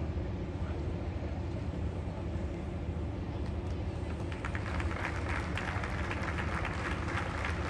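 Steady low outdoor rumble, then a crowd starts applauding about four seconds in and keeps clapping.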